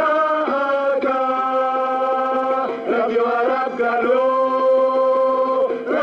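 A chorus of voices singing long held notes in harmony, moving to new notes a little under three seconds in and again just after four seconds.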